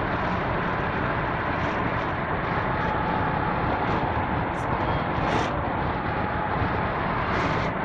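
Steady driving noise inside the cabin of a 2014 Ford Econoline E-250 van cruising on a highway.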